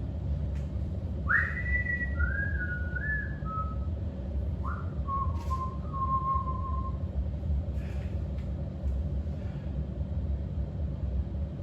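A person whistling two short phrases, the first opening with an upward slide and the second lower and more held, over a steady low hum.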